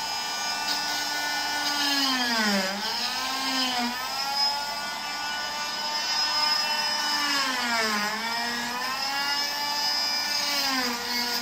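Electric cast saw running with a steady whine, its pitch dropping and recovering three times as the blade bears into the cast material and the motor slows under load.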